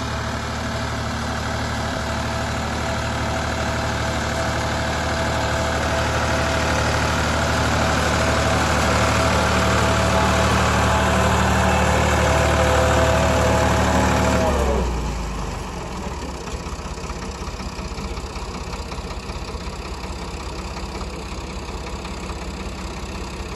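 Ford 3610 tractor's three-cylinder diesel engine running steadily as it pulls a seed planter through the field. About fifteen seconds in its pitch drops and it runs on quieter at a lower speed.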